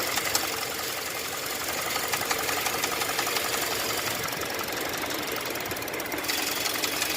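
Car engine running with a fast, steady knock from inside the block, a sign of internal wear that the mechanic judges calls for pulling the engine down for an overhaul.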